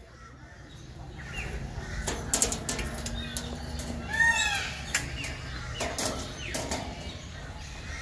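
Knocks and rustling from a handheld camera being carried along a path, over a low steady rumble. Birds call through it, with one clear arching call just past halfway.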